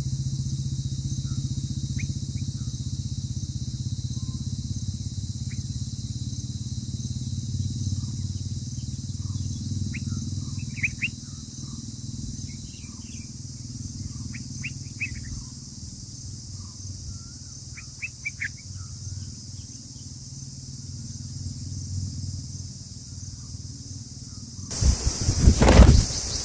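Outdoor ambience at a bird nest: a steady high-pitched insect drone over a low rumble, with scattered short bird chirps. About two seconds before the end a sudden loud rustling and thumping close to the microphone.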